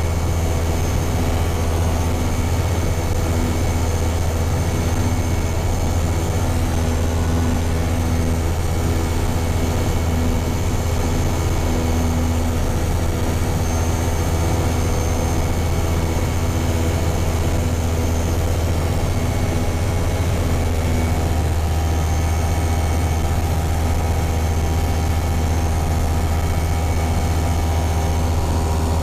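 Engine and propeller of a Hi-Max ultralight airplane running steadily in cruise flight, heard inside the cockpit as a constant low drone. Its tone changes slightly about two-thirds of the way through.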